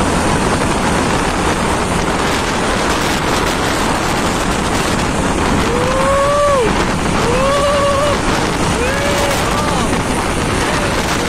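Steady road and wind noise from a vehicle driving along behind a truck. Over it come three short pitched tones, each rising and falling, about six, seven and a half, and nine seconds in; the middle one wavers.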